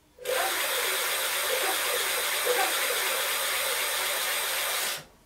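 A steady, loud hiss that starts abruptly and cuts off suddenly after about five seconds.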